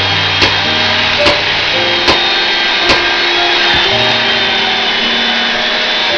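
Axe blows splitting firewood: five sharp strikes, a little under a second apart, in the first four seconds, over background music with long held notes.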